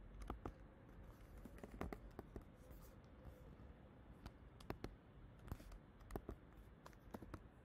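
Faint, irregular keystrokes of a computer keyboard being typed on.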